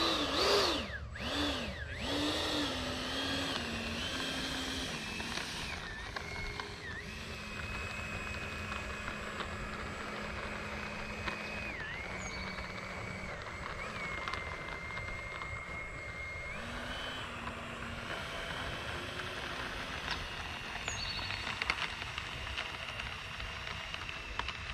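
E-flite F-16's 70 mm electric ducted fan whining, its pitch dipping and rising with quick throttle changes in the first couple of seconds, then holding steady for long stretches with a few step changes, over a low rumble.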